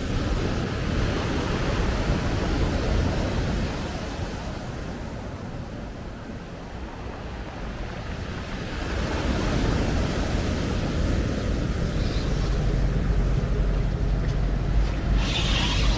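Sea surf washing and breaking on a rocky shore, with wind buffeting the microphone. The wash dips for a few seconds in the middle and then swells again, and a heavier low rumble comes in near the end.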